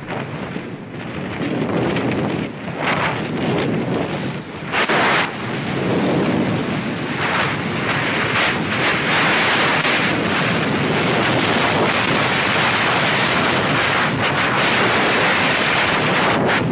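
Wind rushing over a ski-helmet camera's microphone on a downhill run. It comes in gusts, then turns into a steady, louder rush about eight seconds in.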